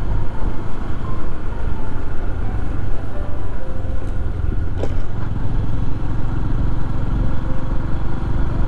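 Motorcycle engine running steadily at riding speed, heard from the rider's own bike, with heavy wind rumble on the helmet-mounted microphone.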